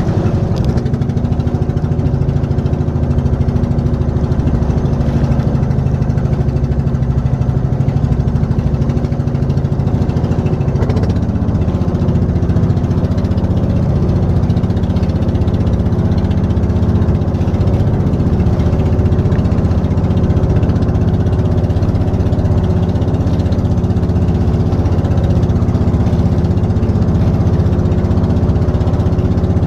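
A small boat's engine running steadily and loudly at an even speed, a constant low hum.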